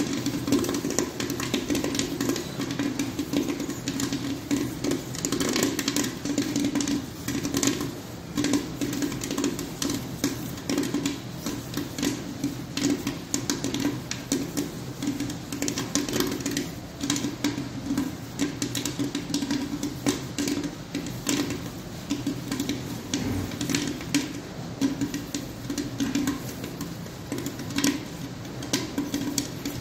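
Corn popping in an electric popcorn machine's stainless-steel kettle, a dense, continuous crackle of kernels bursting many times a second over a steady hum.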